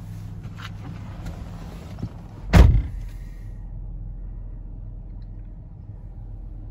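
2010 Dodge Grand Caravan's V6 idling with a steady low hum, heard from inside the cabin. About two and a half seconds in, a van door is slammed shut with a single heavy thunk, and the outside hiss drops away once it is closed.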